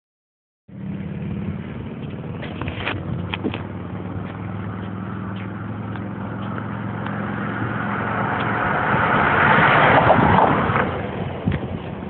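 Road traffic: a car engine's steady low hum, with the noise of a vehicle passing, swelling to a peak about ten seconds in and then falling away.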